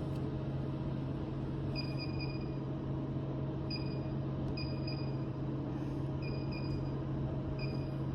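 Vending-machine keypad beeping as codes are keyed in: short high electronic pips, singly and in quick runs of two to four, over a steady machine hum.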